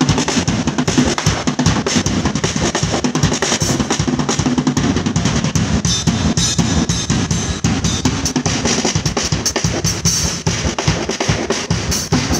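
Acoustic drum kit played in a fast, busy solo: bass drum, snare and tom strokes in dense runs, with cymbals ringing out now and then.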